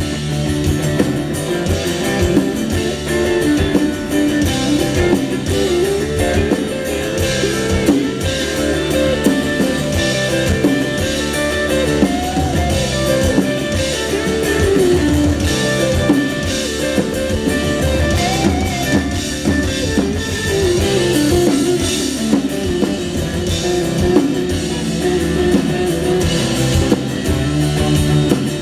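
Live rock band playing an instrumental stretch with no singing: amplified electric guitars over a drum kit.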